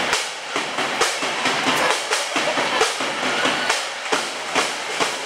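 Steady drumbeat with music, about two beats a second, over a continuous wash of loud arena crowd noise.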